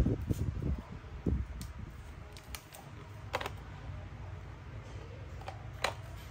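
A few scattered light clicks and knocks from handling a cordless drill and its battery, with some handling rumble in the first second; the drill's motor is not running.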